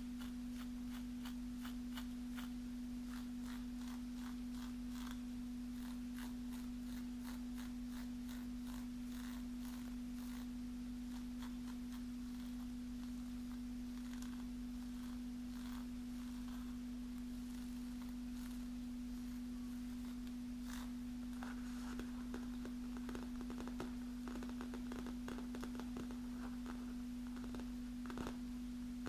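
A steady hum held at one low pitch, with faint light clicks of long fingernails touching one another scattered over it.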